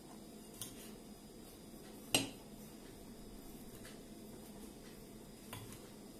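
A spoon stirring ground almonds and powdered sugar in a ceramic bowl, clinking sharply against the bowl once about two seconds in, with two fainter taps.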